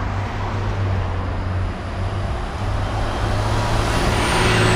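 City bus driving past close by, its engine and tyre noise growing louder as it nears, with a high whine that drops in pitch near the end as it goes by.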